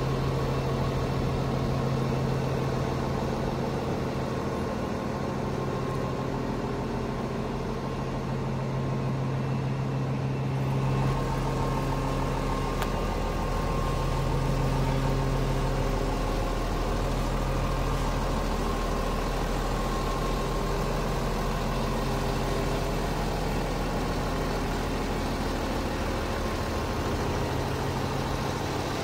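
Cummins ISL9 inline-six diesel engine of a Peterbilt 320 garbage truck idling steadily.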